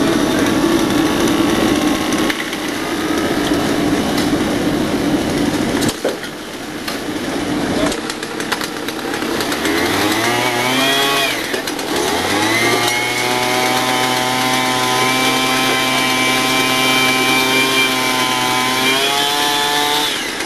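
Small petrol engine of a handheld track-laying tool running rough at first, then revving up twice about ten and twelve seconds in and holding a steady high speed until it drops away near the end.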